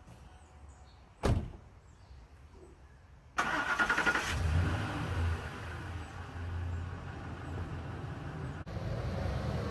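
A Ford F-150 pickup's door is slammed shut about a second in. About two seconds later the truck's engine is started and then runs steadily.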